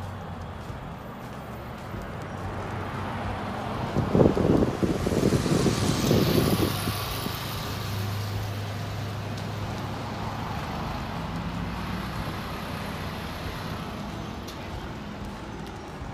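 A road vehicle passing, its noise swelling about four seconds in and fading by about seven seconds, over steady background traffic noise.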